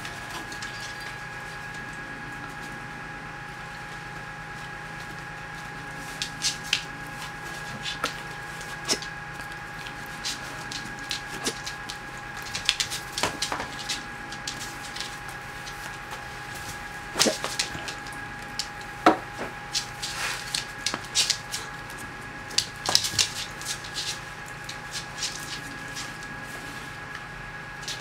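Scattered, irregular clicks and knocks of a dachshund's claws and a blue plastic Hartz frisbee flyer toy on a hard wood-effect floor as the dog mouths and pushes the toy about, over a steady faint hum.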